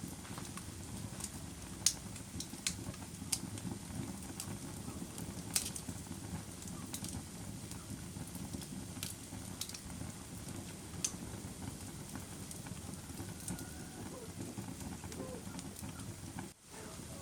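Wood fire crackling in a fireplace: a steady low rumble of burning with scattered sharp pops and snaps, the loudest about two seconds and five and a half seconds in. The sound briefly drops out near the end.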